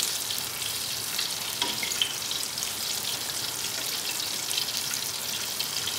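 Breaded chicken strips deep-frying in hot oil in a turkey-fryer pot: a steady sizzle with many small crackles.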